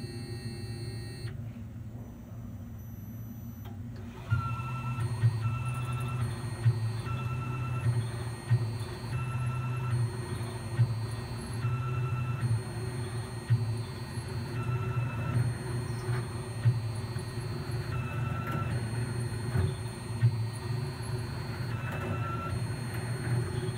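Tormach 8L CNC lathe running while it drills the end of a spinning bar with a twist drill in a collet chuck: a steady machine hum that steps up in level about four seconds in, with short high-pitched motor whines repeating roughly once a second as the drill is fed in and backed out.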